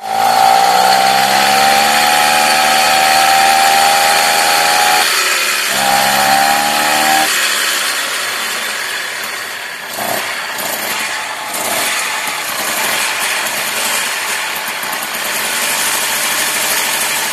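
A moped's small two-stroke engine running loud and steady. Its note sags slightly, dips briefly about five seconds in and picks up again, then runs less evenly from about seven seconds on.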